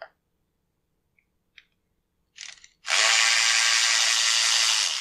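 Cordless ratchet backing a bolt out of a chainsaw: a few light clicks as it is set on the bolt, a brief trigger pull about two and a half seconds in, then the motor runs steadily for about two seconds and trails off near the end.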